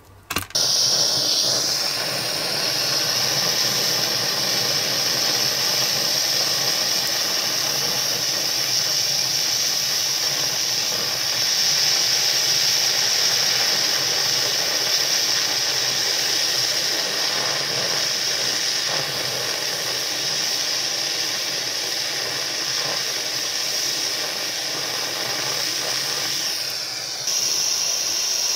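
Hand-held gas torch burning with a steady hiss as its blue flame heats small wire parts for soldering; the hiss comes on sharply about half a second in and dips briefly near the end.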